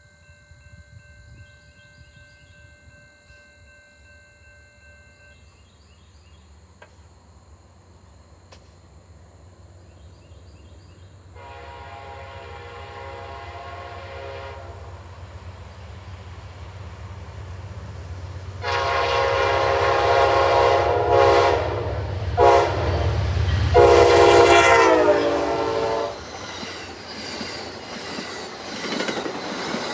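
Approaching Amtrak P42 diesel locomotive sounding its multi-chime air horn as two long blasts, a short one and a final long one: the grade-crossing signal. The blasts sit over a diesel rumble that grows louder as it nears. The train then passes close by with its wheels clicking on the rails.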